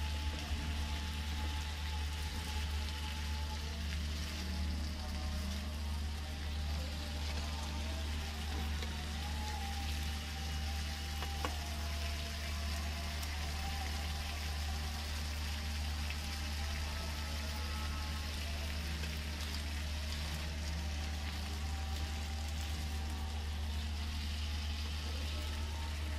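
Sliced potatoes sizzling steadily in hot oil in a frying pan, over a low steady hum, with one sharp click about eleven seconds in.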